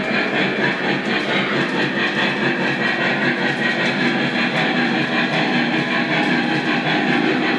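Lionel Legacy N&W Y6b 2-8-8-2 model steam locomotive running on three-rail track: wheels rolling and the onboard sound system's steam running sound, steady with a quick regular beat.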